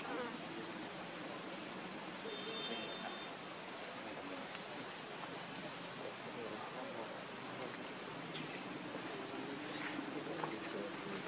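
Insects droning in one steady high-pitched tone, with a few faint short chirps over it.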